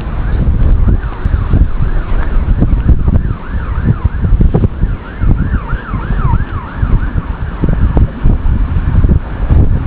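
Strong wind buffeting the microphone. Behind it a fainter siren warbles, sweeping rapidly up and down about three times a second.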